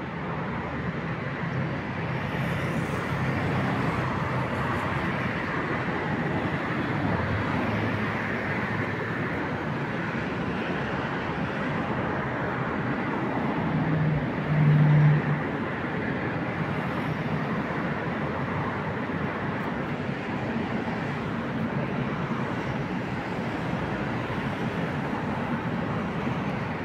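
ChS7 electric locomotive hauling a departing passenger train, with a steady rumble of the train on the move. About halfway through, the locomotive's horn sounds twice on one low note, a brief blast followed by a longer one.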